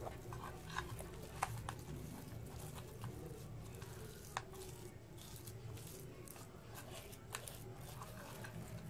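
Faint squishing of a hand rubbing wet spice paste into the cuts of a whole pomfret, with a few small clicks scattered through.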